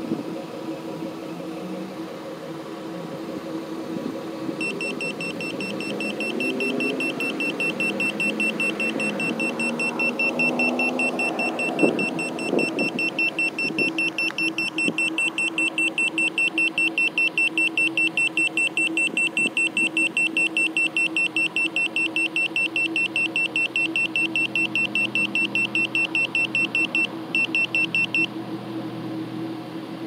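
Handheld Smart Sensor carbon monoxide meter sounding its alarm, a rapid run of high-pitched beeps that starts a few seconds in and cuts off suddenly near the end, as it picks up carbon monoxide in the exhaust at a car's tailpipe. Under it a car engine idles with a steady hum.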